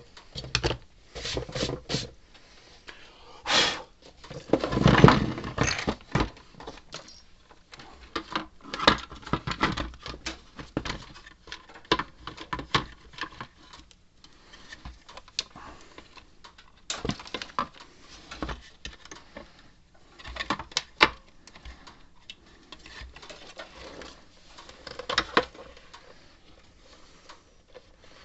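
Irregular clicks, taps and clatter of small metal parts and hand tools being handled on a workbench, with a few louder knocks along the way.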